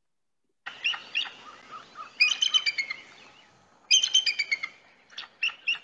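Recorded bald eagle call, the wimpy kind: quick, high-pitched chittering notes in three or four short runs, starting about a second in.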